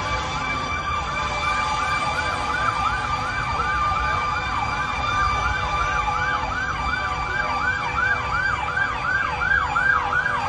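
Emergency vehicle siren on a fast yelp, its pitch sweeping up and down about three times a second and growing slightly louder near the end, as emergency services respond to the burning crash site.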